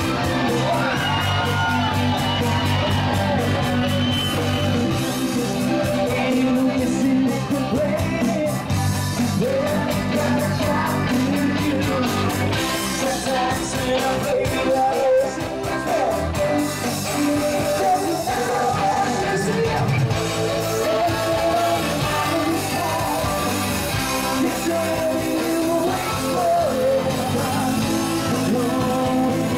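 Live band playing an up-tempo song with a singer, keyboard and a steady beat, amplified over a PA.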